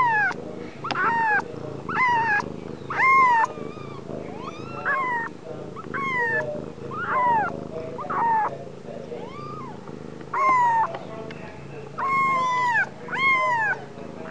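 Newborn kittens mewing: a string of high, thin cries, about one a second, each falling in pitch.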